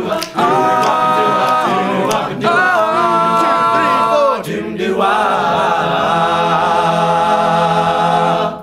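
Male a cappella group singing in close harmony: a few short phrases, then one long chord held from about five seconds in until it stops.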